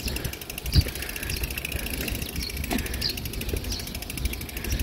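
Riding a bicycle along a road: wind rumble on the bike-mounted microphone, with a fast, even ticking and a few short, high chirps, and one brief low thump about a second in.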